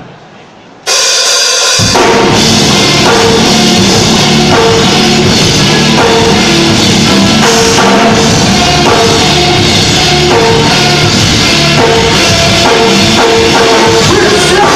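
Rock band playing the instrumental opening of a song. The band comes in suddenly and loudly about a second in, the bass and kick drum join a second later, and then drums, cymbals and the other instruments play on steadily.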